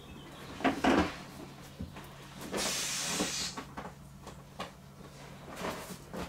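Air hissing from a pump into an inflatable vinyl dolphin, one hiss of about a second near the middle. A few knocks and rubbing sounds from the vinyl and pump being handled come about a second in.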